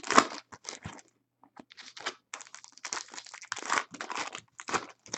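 Foil trading-card pack wrappers and packaging crinkling and tearing as card packs are opened by hand, in irregular rustling spells with the loudest just after the start and a short pause about a second in.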